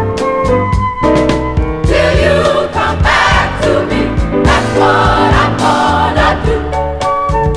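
Gospel choir singing over a band with a steady drum beat; the choir's voices come in strongly about two seconds in, over sustained keyboard-like chords.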